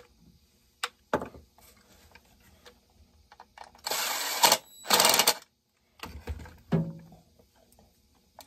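Handheld cordless driver run in two short bursts, about a second apart, fastening a screw on a chainsaw during assembly. Scattered clicks and knocks of parts and tools being handled come before and after.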